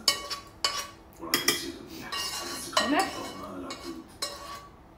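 A utensil scraping and knocking against a metal frying pan as tomato sauce is scraped out of it into a glass baking dish, with several sharp clanks between the scrapes.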